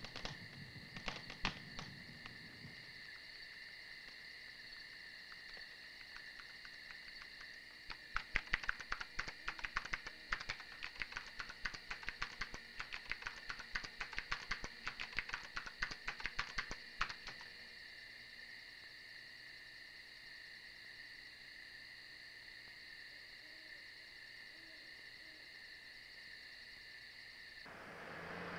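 Night ambience: a steady chorus of crickets, with a run of sharp, irregular clicking in the middle and a few faint owl hoots late on. The chorus cuts off a second before the end as a broader hiss rises.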